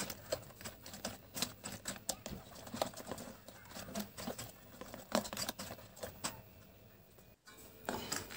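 A utensil stirring batter in a stainless steel bowl, clicking and scraping against the metal in quick, irregular taps. The sound cuts out briefly about seven seconds in.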